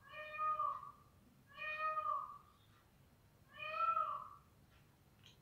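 A cat meowing three times, about two seconds apart, each meow a short call that rises and falls.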